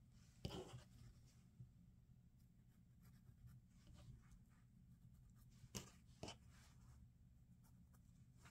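Near silence: faint brushing of a felt-tip marking pen and cotton flannel being handled, a few soft strokes about half a second in and twice around six seconds, over a low steady hum.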